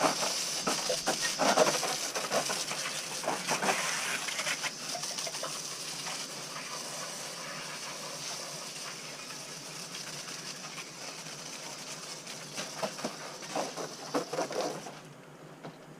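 Water spraying from a hose onto a bicycle in a quick rinse-down, a steady hiss with patches of spatter against the frame near the start and again near the end; the spray cuts off about a second before the end.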